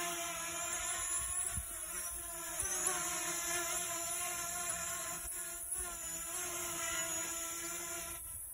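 RC Viot EC120 quadcopter drone's propellers whirring in flight: a steady buzzing hum of several tones together, its pitch wavering slightly as the throttle changes.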